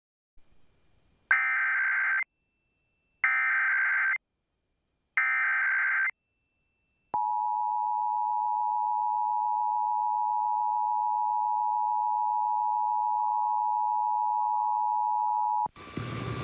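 Emergency Alert System test signal. Three one-second bursts of the digital SAME header, a warbling data screech, are followed about a second later by the two-tone attention signal (853 and 960 Hz sounded together), held steady for about eight and a half seconds before cutting off.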